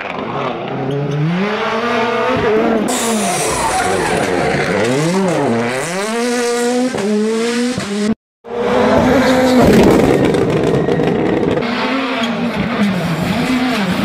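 Ford Fiesta WRC rally car's turbocharged 1.6-litre four-cylinder engine revving hard and dropping repeatedly through gear changes and downshifts in the bends. There is a brief cut to silence about eight seconds in, then the engine rises and falls again.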